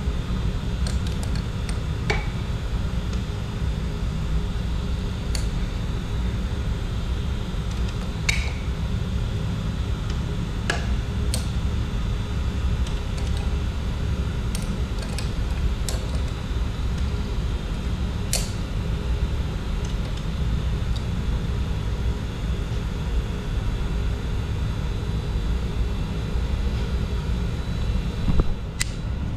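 Boyar Schultz H612 surface grinder running: a steady hum with a low rumble from its 1 hp three-phase spindle motor. A few sharp clicks and knocks come through it, the loudest near the end.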